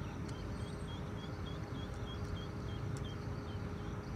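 Outdoor background noise: a steady low rumble with a short, high chirp repeating about three times a second and a few faint clicks.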